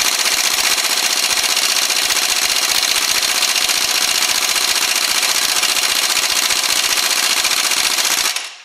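Pneumatic impact wrench (air gun) hammering rapidly and continuously on a seized, rusted bolt at the base of a front suspension strut, without freeing it. The hammering stops near the end.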